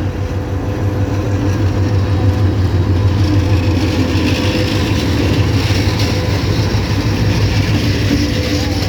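Train running close by: a loud, steady rumble with a deep hum underneath that swells a little in the middle.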